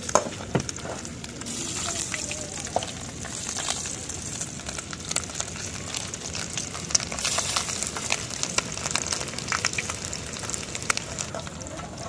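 Small masala-coated river fish deep-frying in oil in an aluminium kadai: a steady sizzle with scattered crackling pops. A metal perforated ladle stirring in the pan adds occasional clinks and scrapes.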